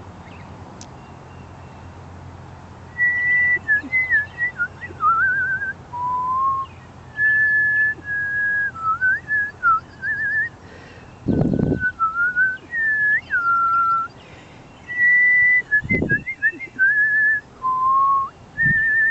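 A person whistling a string of clear, bird-like phrases to call cardinals: held notes, short slides and warbling trills, starting a few seconds in. Two dull low thumps come partway through.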